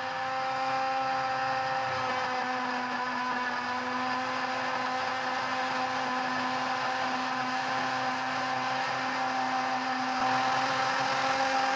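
Electric countertop blender running at a steady pitch, its motor whining as it purées tomatoes with a little water.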